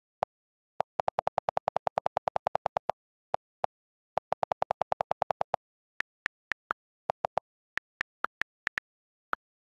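iPad on-screen keyboard key-click sounds. Two runs of rapid, lower clicks, about ten a second, come as the delete key is held to erase text. From about six seconds in, single, higher clicks come as letters are tapped one at a time.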